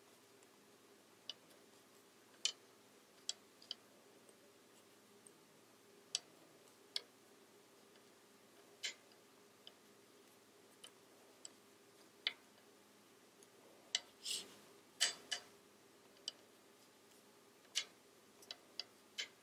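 Wooden knitting needles clicking together as stitches are knitted: soft, irregular ticks about once a second, with a brief flurry of louder clicks and a short scrape about three-quarters of the way through.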